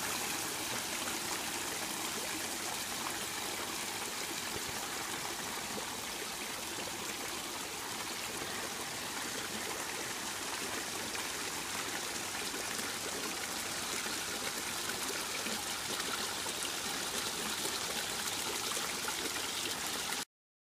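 Water from a pond filter's return pipe splashing steadily into the pond, a continuous trickling rush of water; it cuts off suddenly near the end.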